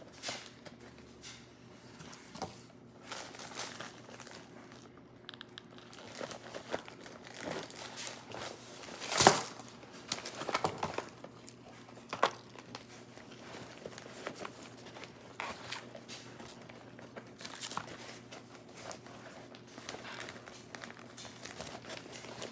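Plastic bag and firework packaging crinkling and rustling as they are handled, with scattered small clicks and one sharp knock about nine seconds in.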